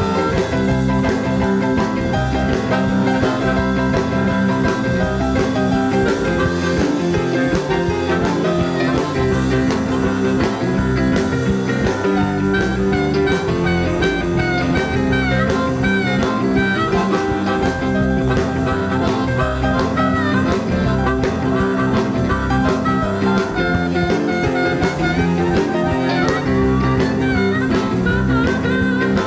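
Live electric blues band playing an instrumental passage: electric guitar over drums and bass with a steady beat.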